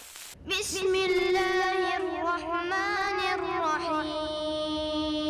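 A child reciting the Quran in a melodic chant (tajweed), holding long, slowly gliding notes. The voice sets in about half a second in, and the last note is held steady.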